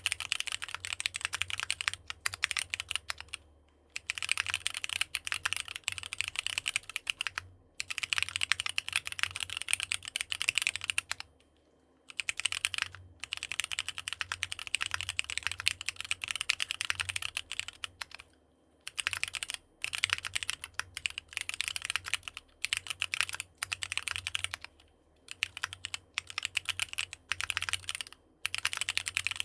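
Typing on a NEO65 65% mechanical keyboard fitted with AKKO Sponge tactile switches: fast, dense keystrokes in runs, broken by short pauses, the longest about twelve seconds in.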